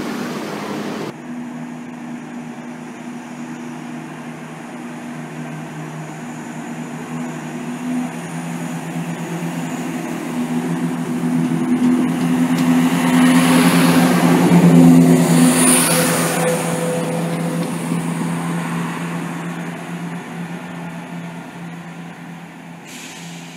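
CrossCountry Class 170 Turbostar diesel multiple unit running past and away. The steady diesel engine drone grows louder, peaks about 15 seconds in with a brief high whine, then fades as the train recedes.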